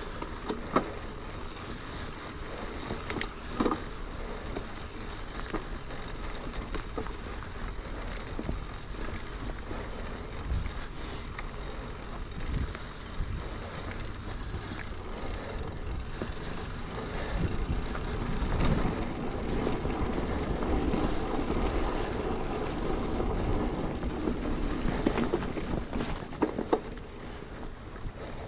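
Mountain bike riding along a dirt forest trail: steady tyre rolling noise on the packed earth, with sharp knocks and rattles from the bike over bumps and roots, rougher and louder for a stretch in the second half.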